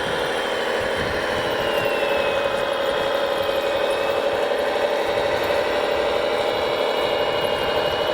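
Electric motors and gearing of radio-controlled scale construction machines running steadily with a mechanical whir. Over it, a thin high whine slides down in pitch and then back up as the motor speed changes.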